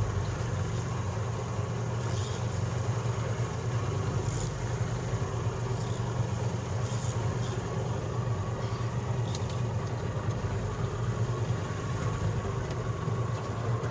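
Boat's outboard motor running steadily at low revs, a constant low hum.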